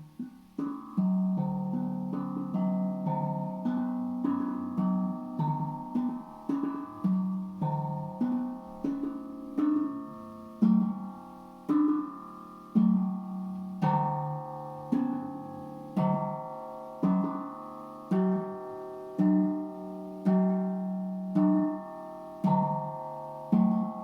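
Tank drum (steel tongue drum) played by hand in a steady rhythm, about one to two notes a second. Each struck tongue rings on under the next, so the notes blend into a sustained, overlapping melody.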